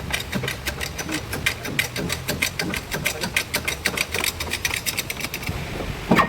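Rapid, even mechanical clicking, about six clicks a second, which stops about five and a half seconds in; a single heavy knock follows near the end.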